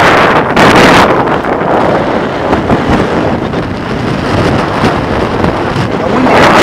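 Wind buffeting the microphone: a loud, rushing noise that eases somewhat in the middle and comes back strongest near the end.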